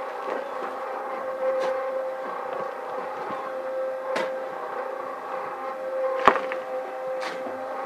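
Portable electric cement mixer running with a steady motor hum while a batch of concrete is mixed. A few sharp knocks and scrapes come through, the loudest about six seconds in.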